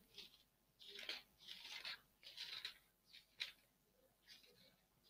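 Near silence, with a few faint, short hissing rustles scattered through it.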